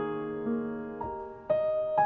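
Slow piano music, with a new note or chord struck about every half second and left to ring.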